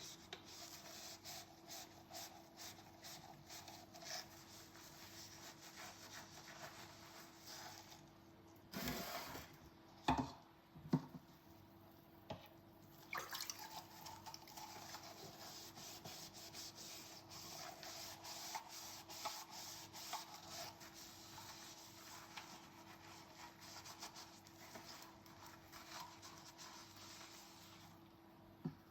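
Dishes being scrubbed with a sponge: a long run of quick, faint rubbing strokes, with a few louder clinks of dishware about nine to eleven seconds in.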